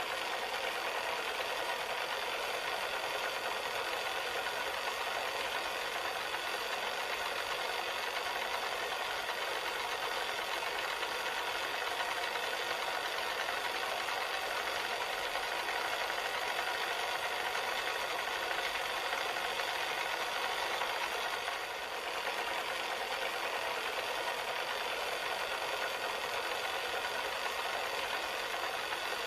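Cassette player's tape mechanism running steadily, with a brief dip in level about 22 seconds in.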